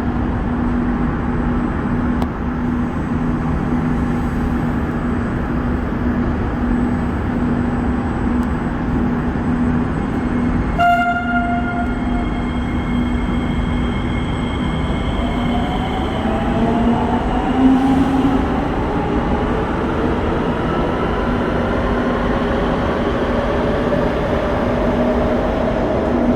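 An SMRT C151B metro train sounds its horn once, a single short toot of about a second, over the steady hum and rumble of the train. A few seconds later the train pulls away, its motor whine rising steadily in pitch as it speeds up.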